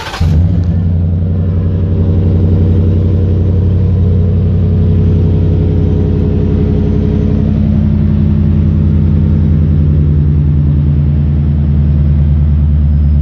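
Ford F-150's engine catching right at the start and settling into a steady, loud idle, heard close to the tailpipes of its Quiet Tone performance dual exhaust.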